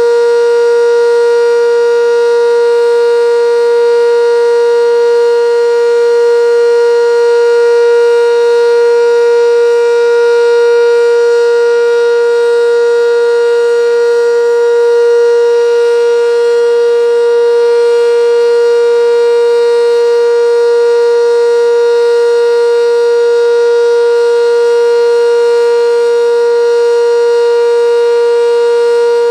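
Sentry 10V electromechanical outdoor warning siren sounding a steady alert tone, loud and holding one pitch without rising or falling.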